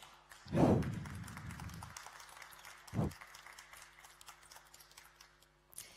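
Audience applauding with a patter of hand claps that thins out towards the end, broken by a dull thump about half a second in and another about three seconds in.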